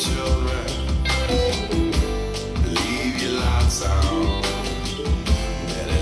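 A guitar-led song with a strong, pulsing bass line played back through JBL Synthesis 1400 Array BG loudspeakers and heard in the listening room.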